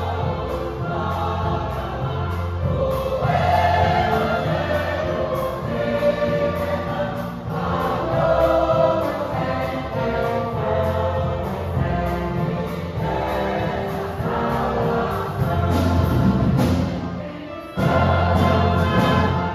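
Choir singing a gospel hymn with orchestral accompaniment over a steady pulsing bass line.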